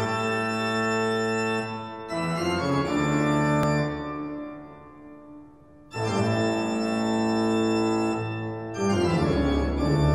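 Organ music: held chords that change every few seconds, dying away about halfway through before the next chord comes in.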